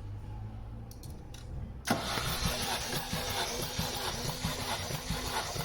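Opel Astra's 1.8 Z18XE four-cylinder petrol engine turning over on the starter motor. It starts suddenly about two seconds in and keeps an even pulsing beat of about three pulses a second as the cylinders come up on compression.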